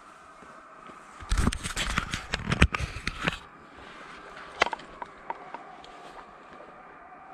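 A pack of deer hounds baying faintly in the distance, giving voice on deer they have just jumped. A loud burst of crunching footsteps in dry pine straw and leaves runs for about two seconds, followed by a few sharp single snaps.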